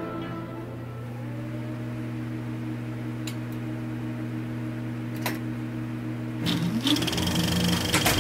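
Logo sound design: a steady low electronic hum made of a held chord, crossed by a few sharp clicks, then a rising sweep about six and a half seconds in that leads into a higher held tone.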